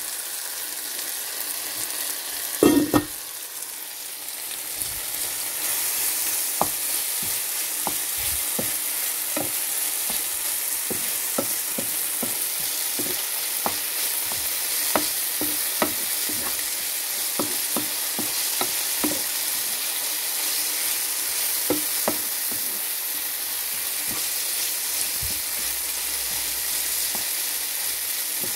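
Diced vegetables sizzling steadily in a frying pan. A wooden spatula stirs them with many short taps and scrapes against the pan, and there is one louder knock about three seconds in.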